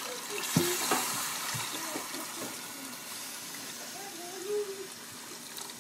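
Water being poured into a cooking pot over pieces of browned chicken, a splashing hiss that is loudest in the first couple of seconds, with a knock about half a second in.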